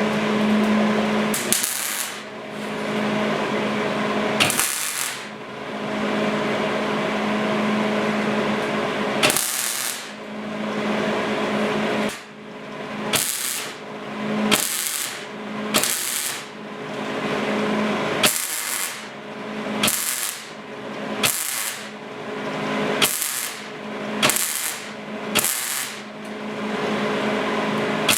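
Welder laying beads on steel body panels during rust repair: a long run early on, then short stitch-weld bursts about once a second, each with a sharp crackle, over a steady low hum.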